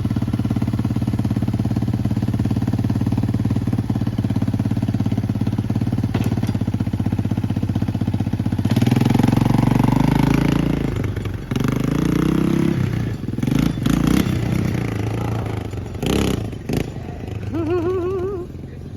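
1986 Yamaha YTM225 three-wheeler's single-cylinder four-stroke engine idling steadily. About nine seconds in it is revved up, rising and falling in pitch repeatedly.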